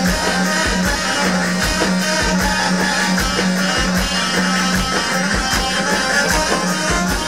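Instrumental break in Arabic wedding dance music: a melody over a steady drum beat, with no singing.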